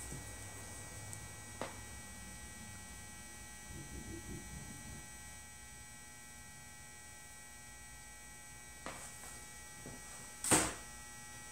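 Steady low electrical hum, with a few faint clicks and one brief, louder knock near the end as the engine's seal housing parts are handled.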